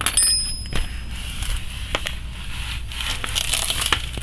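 Hand tools and steel bolts clinking and scraping against the exhaust manifold collector as its bolts are fitted. A sharp metallic clink rings briefly at the start, followed by scattered clicks and scraping.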